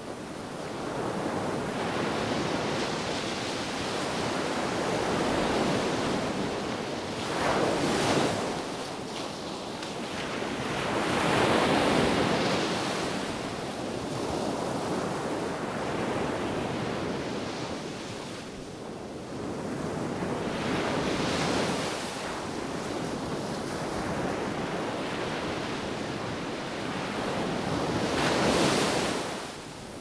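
Small sea waves breaking and washing up a sandy beach, the surf rising and falling, with louder crashes about eight, twelve, twenty-one and twenty-eight seconds in. Wind blows throughout.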